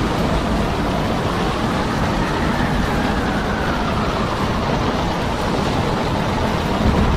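Steady, loud rumbling roar of storm wind and heavy sea heard aboard a ship, with wind buffeting the microphone.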